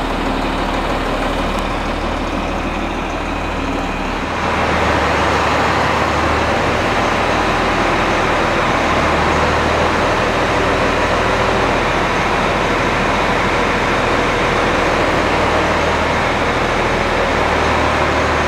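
Farm tractor's diesel engine running steadily, at first the John Deere 4840's six-cylinder diesel. About four seconds in, the sound cuts to a louder, noisier engine.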